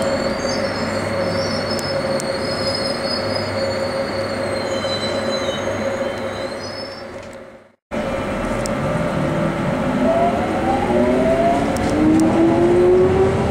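Interior sound of a London Underground Jubilee line 1996-stock train: steady running noise with high, wavering wheel squeal. About halfway it cuts briefly to silence, then the train pulls away with its traction motor whine rising in pitch.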